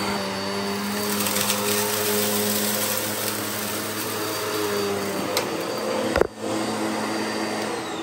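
Morphy Richards Ultralight bagged upright vacuum cleaner running steadily as it is pushed over carpet, sucking up fine gritty dirt: a steady motor hum over the rush of air. The sound dips briefly about six seconds in.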